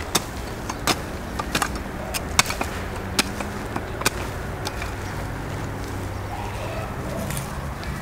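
A short-handled garden hoe chopping into dry, stony soil to cut weeds, with sharp strikes about once a second that stop about five seconds in.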